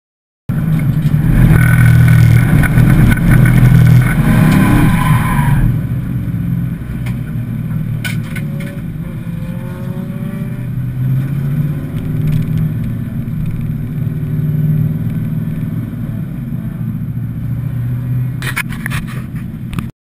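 1994 Pontiac Firebird Formula's LT1 V8 heard from inside the cabin during an autocross run. It is hard on the throttle for the first few seconds, then runs at lower revs, with the front tires squealing as they fail to grip through the corners. The sound cuts off suddenly near the end.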